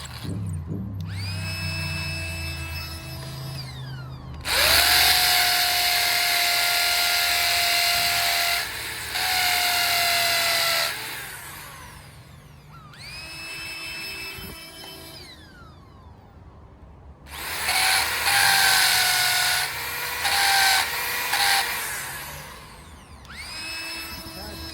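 Power drill boring a pilot hole into concrete for a concrete screw, in several runs: the motor whine winds up and down between loud, rough stretches of drilling into the concrete.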